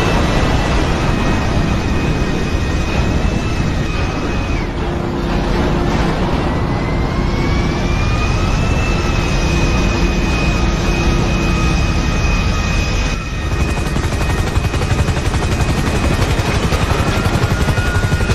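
Aircraft engines running loud and steady, with a high whine that rises and levels off twice and falls away near the end. There is a brief dip about thirteen seconds in.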